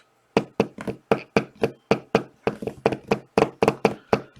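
A quick, uneven run of sharp knocks and taps on a hard surface, about five a second.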